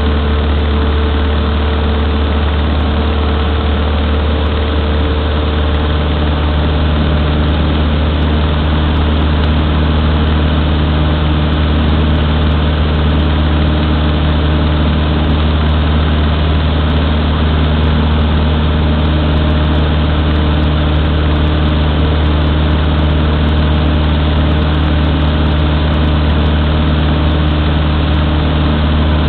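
Cessna 152's four-cylinder Lycoming engine and propeller droning steadily in cruise flight, heard from inside the cabin, with a slight change in tone about six seconds in.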